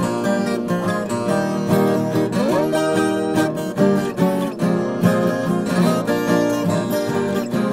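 Background music played on a strummed acoustic guitar.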